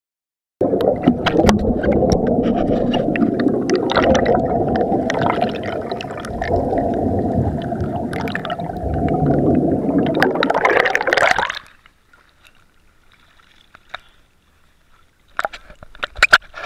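Water sloshing and gurgling heard through a camera held in or at the water, a dense low rushing noise with scattered clicks that cuts off abruptly about twelve seconds in. A few faint clicks follow near the end.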